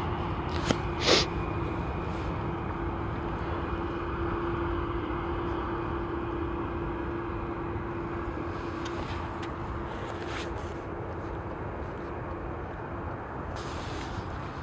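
Jet airliner engine noise, steady with a constant hum, slowly fading. A short sharp click about a second in.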